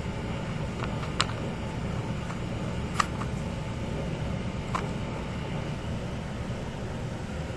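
Kittens' claws and paws catching on a hanging door scratcher: a handful of sharp clicks and taps, the loudest about three seconds in, over a steady low rumble.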